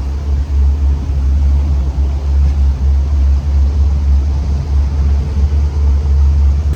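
Outboard motor of a panga fishing boat running at a steady pitch, heard as a loud, even low rumble.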